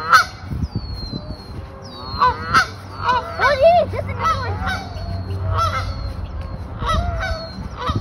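Canada geese honking repeatedly, with calls coming several times a second and overlapping.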